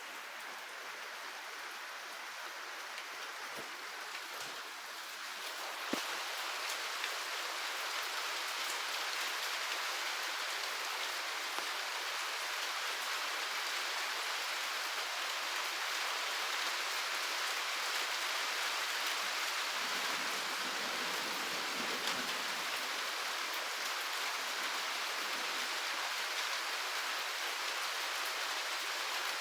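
Steady heavy rain, an even hiss that grows louder about six seconds in. There is a short low rumble around twenty seconds in.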